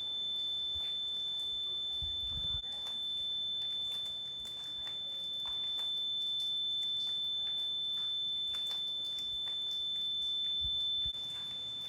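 A continuous high-pitched electronic tone, held at one steady pitch without breaks. A few soft knocks and low thumps come about two seconds in and again near the end.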